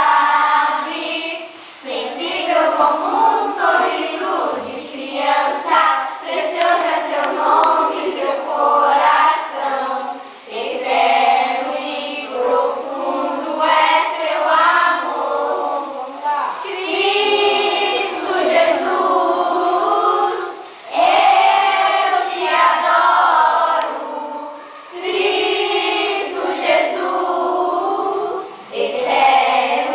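A group of young children singing a song together, in sung phrases with short breaks between them.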